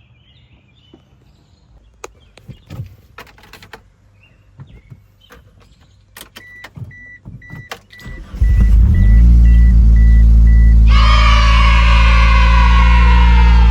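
Clicks and knocks of handling, then a car's warning chime beeping evenly about twice a second. About eight seconds in, the 2G DSM Mitsubishi Eclipse's engine cranks and starts, then idles steadily, running on the newly fitted ignition control module meant to cure its cylinder 2 and 3 misfire. A few seconds later a loud, high whine with several pitches, drifting slowly lower, sits over the idle.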